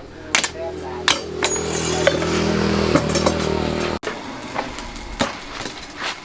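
A small engine running steadily for about four seconds, swelling slightly near the middle, then cutting off abruptly. Light metallic clinks follow.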